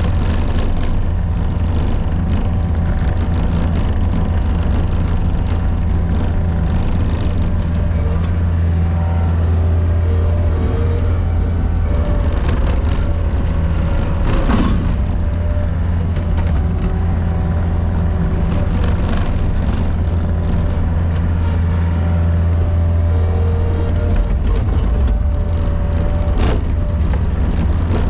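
Gehl RT65 tracked skid steer's engine running steadily at high throttle as the machine pushes snow, a constant low drone with higher whining tones that come and go. A short clunk is heard about halfway through and another near the end.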